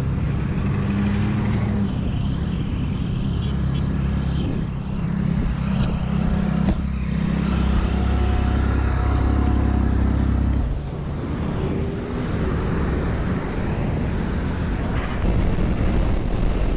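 Freeway traffic streaming past at speed: a steady rush of tyres and engines, with a heavier low rumble as a big vehicle goes by about eight seconds in.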